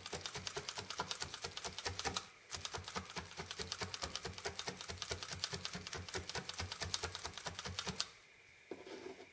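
Multi-needle felting tool stabbing rapidly into wool on a burlap-covered felting pad, a fast even ticking of about ten strokes a second. It breaks off briefly about two seconds in and stops shortly before the end.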